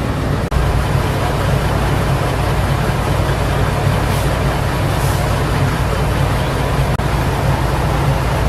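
Steady low rumble of a large engine running at idle, with two brief dips in level, about half a second in and near the end.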